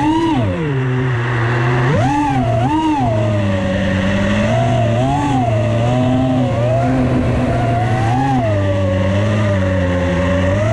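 FPV freestyle quadcopter's brushless motors whining, the pitch swooping up and down with each throttle punch and chop, with several quick swoops in the first few seconds, then smaller wobbles around a steady cruise.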